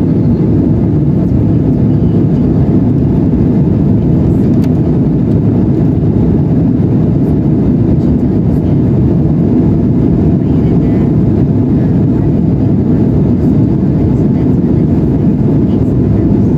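Steady cabin noise of an Embraer E175 jet airliner in flight, heard from inside the cabin at a window seat: an even, deep drone from its two GE CF34-8E turbofan engines and the rushing air, with no change in pitch or loudness.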